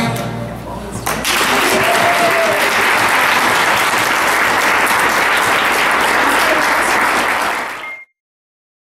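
Audience applauding, breaking out about a second in as the last sung note fades, then cut off suddenly near the end.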